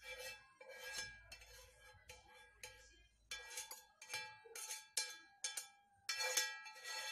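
A spoon scraping and knocking against a frying pan as tomato sauce is scraped out into a plate: about a dozen uneven metallic knocks, one or two a second, each ringing briefly, the loudest a little after six seconds in.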